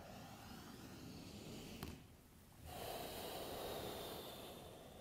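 A person breathing slowly and deeply, close to the microphone: a soft breath, a brief pause, then a longer, louder breath starting almost three seconds in. A faint click comes just before the pause.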